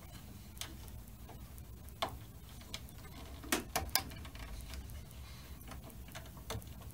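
Scattered small clicks and ticks of wires being handled and pushed into a push-in wire connector at a metal junction box, with a close cluster of sharper clicks about three and a half seconds in.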